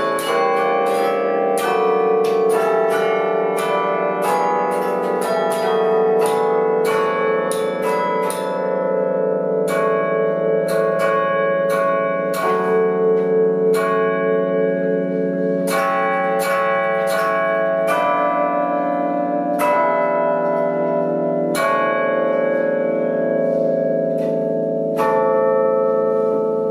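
Bells ringing, struck in quick, irregular succession so that the ringing tones overlap and hang on beneath the strikes.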